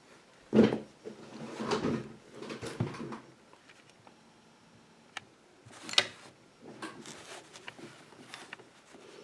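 Handling noise as things are fetched and set down: a run of knocks and clatter, the loudest a knock about half a second in, then a sharp click about six seconds in followed by lighter rattling.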